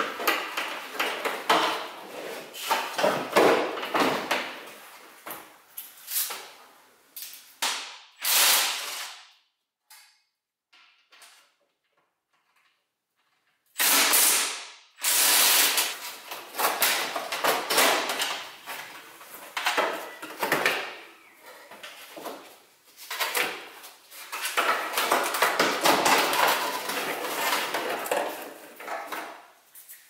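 Irregular clattering, knocking and rattling of car parts and tools as the front end of a BMW E46 is taken apart by hand to reach the hood latches. About a third of the way in there is a break of a few seconds of near silence.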